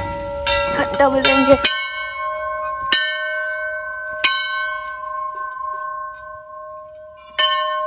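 A hanging temple bell struck four times by pulling its rope, the strikes unevenly spaced about a second or more apart. Each strike rings on at the same pitches and slowly fades.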